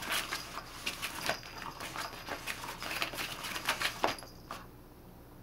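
Cat's Meow battery-powered cat toy running under its fabric cover: a faint whine with irregular clicks and fabric rustles. It stops about four seconds in.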